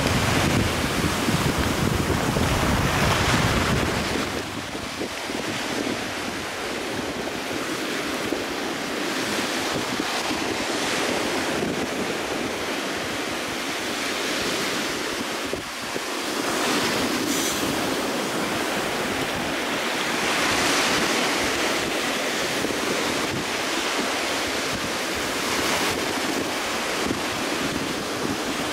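Ocean surf breaking and washing up a beach, swelling and easing every several seconds. Wind rumbles on the microphone for the first four seconds or so, then dies down.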